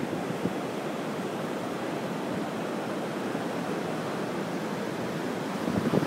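Steady hiss of ocean surf washing on the beach. Wind buffeting the microphone comes back near the end.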